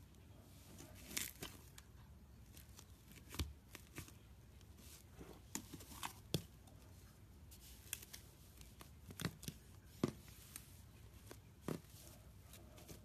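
Iceberg slime, its dried crust crackling and tearing as it is worked: faint, irregular sharp crackles and snaps, a dozen or so spread unevenly.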